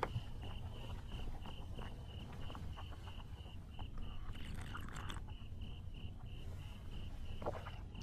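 A cricket chirping steadily, one even high-pitched chirp repeated about two or three times a second, over a low background hum, with a few faint rustles and light clicks.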